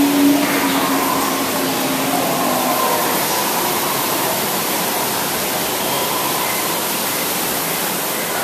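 Log flume ride running through a dark tunnel: a steady rushing noise of water and ride machinery. A held tone fades out about two and a half seconds in.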